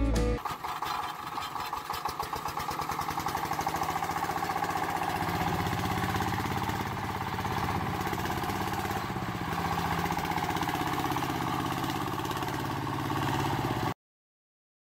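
Small motor of a miniature model tractor running steadily as it drives, with a fast buzzing pulse. It builds up over the first couple of seconds, then cuts off abruptly near the end.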